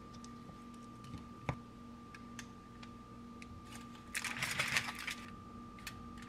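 A kitchen utensil working a soft, runny banana-oatmeal batter. There are a few light clicks, then about a second of scraping a little after four seconds in, over a faint steady hum.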